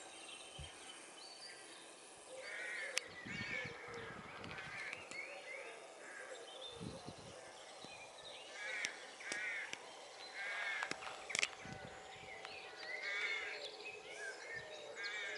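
Wild birds calling around the railway cutting: short calls repeated in bouts throughout, with fainter chirping behind and a couple of sharp clicks.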